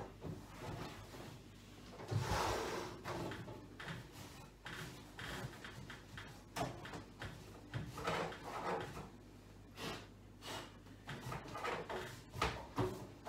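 Scattered knocks, clicks and rubbing of a microwave being handled and wiped during cleaning, with a short rustling swipe about two seconds in.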